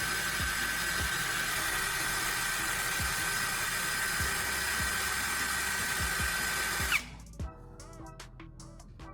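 Power drill spinning a carbon rod in its chuck while the rod is pressed into sandpaper on a wood block: a steady whir with a sanding hiss that cuts off suddenly about seven seconds in. Background music with a steady beat runs underneath, and a few light clicks follow the stop.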